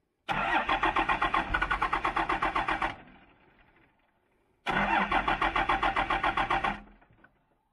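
Cummins diesel in a Dodge Ram pickup being cranked by the starter in two attempts, one of about two and a half seconds and one of about two seconds, each a fast, even chugging of compression strokes that stops abruptly. The engine does not catch and run.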